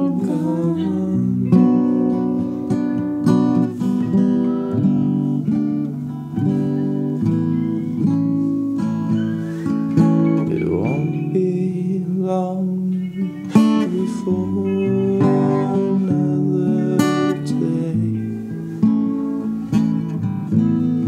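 Acoustic guitar music: an instrumental passage of strummed and picked guitar.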